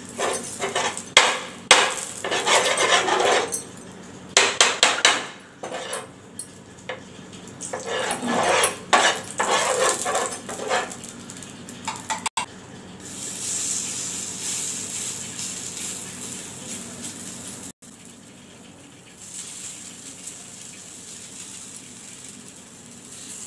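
Metal spoon scraping and knocking on a flat iron tawa, with pots and utensils clinking, in a run of sharp clatters over the first dozen seconds. Then a steady hiss for several seconds, and quieter kitchen handling near the end.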